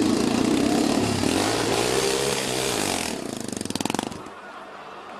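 Off-road motorcycle engine revving hard with the pitch rising and falling, then falling to a rapid, even chugging about three seconds in before dropping away around four seconds in.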